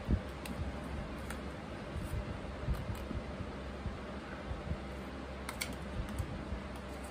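Eating canned ravioli with a plastic spoon: scattered light clicks and taps of the spoon against the tin can, with chewing, over a steady low hum.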